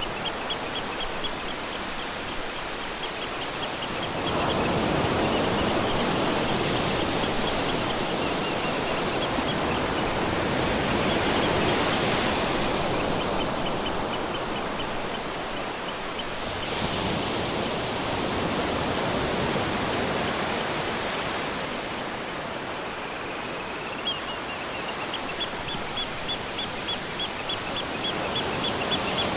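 Ocean surf: waves rushing in and washing out in long swells, loudest through the middle. Rapid, repeated high chirping calls sound over the surf at the start and again near the end.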